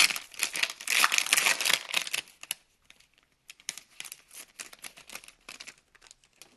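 Foil wrapper of a 2019 Topps Gallery baseball card pack being torn open by hand, loud crackling and crinkling for about the first two seconds. Then fainter, scattered crinkles and clicks as the wrapper is peeled back and the cards are handled.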